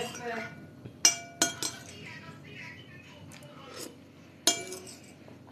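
Metal spoon clinking against a ceramic soup bowl as the last of the soup is scooped up: three ringing clinks in quick succession about a second in, and one more near the end.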